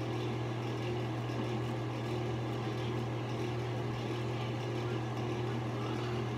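Steady low mechanical hum of a running fan, with a faint even hiss over it.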